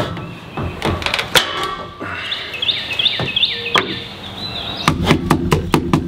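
Small hammer tapping frame nails into wooden beehive frames: scattered single knocks, then near the end a fast run of taps, about six a second. A bird sings a repeated chirping phrase in the middle.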